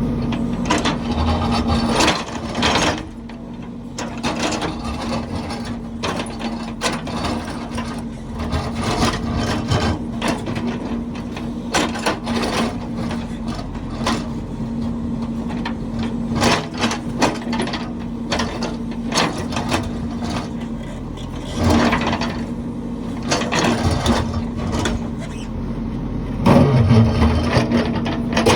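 Heavy construction machine's engine running steadily under many irregular knocks, clanks and scrapes of working gear, louder in a few bursts, near the end above all.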